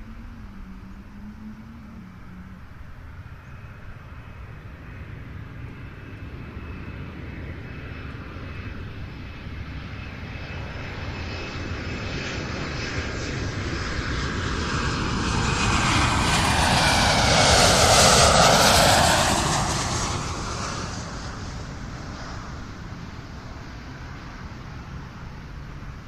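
An airliner flying over: its engine noise swells slowly, peaks about two-thirds of the way in with a whine that drops in pitch as it passes, then fades away.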